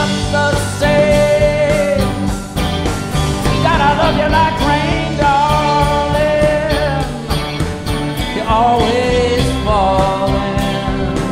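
Live rock band playing: drums, bass guitar and guitars, with a lead melody line that bends and slides in pitch over the steady rhythm.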